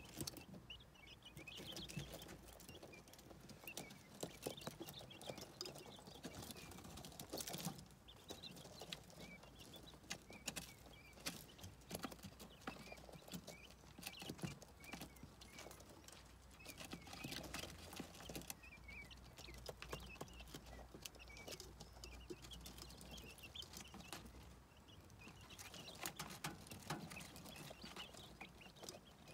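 Quail chicks pecking and scratching in wood shavings and at a plastic feeder: many small irregular taps and clicks, with faint high peeps.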